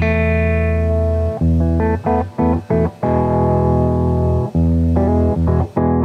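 Background music led by guitar with bass: held chords alternating with short, choppy stabs.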